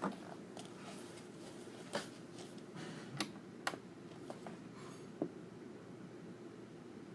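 A few soft, scattered clicks and taps from handling a book during quiet reading, over faint steady room noise; the clicks die away after about five seconds.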